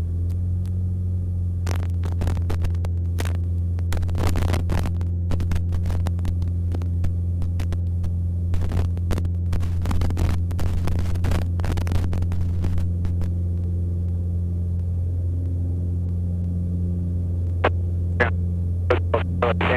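Mooney M20C's four-cylinder Lycoming engine and propeller droning at full takeoff power, heard from inside the cabin, its pitch steady during the takeoff roll. Many sharp clicks and knocks come over it, thickest through the first two-thirds and again near the end.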